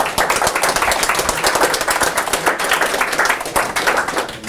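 Audience applauding: many hands clapping in a dense, steady patter that stops near the end.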